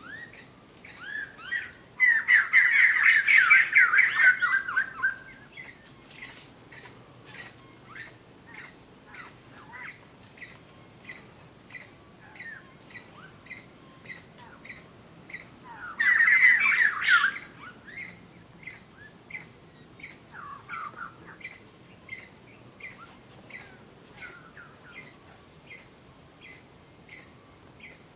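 Birds calling: two loud bursts of rapid squawking chatter, one a few seconds in and one a little past halfway, over short chirps repeating about twice a second.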